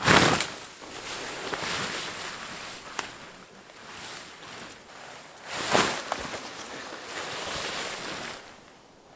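Tent fabric rustling and swishing as a tent is handled and pitched, with two loud sweeps of the fabric, one at the start and one about six seconds in.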